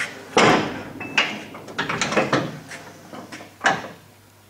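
A series of metal clanks and knocks from steel snowplow parts being handled, the loudest about half a second in and again near the end.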